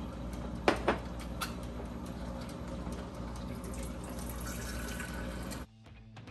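Kitchen tap running steadily into a sink, with two sharp clinks of dishware about a second in. Near the end the running water cuts off abruptly and guitar music begins.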